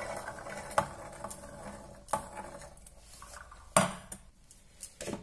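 Fresh green peas rustling and rattling against a stainless steel bowl as a hand works through them, then a few sharp clinks and knocks of the steel bowl, the loudest a little before four seconds in.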